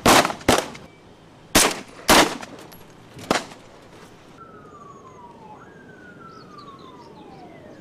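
Rifle shots: about six sharp cracks in the first three and a half seconds, the last one fainter. Then a high tone falls in pitch in two long sweeps, like a siren winding down.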